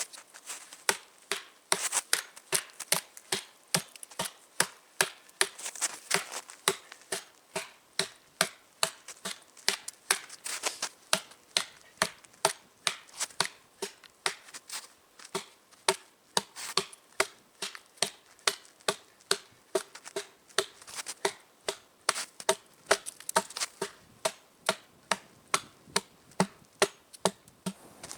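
Quick, regular chopping blows into a log, about two a second: the top layer of the log being hewn off for a nodya fire so it catches better.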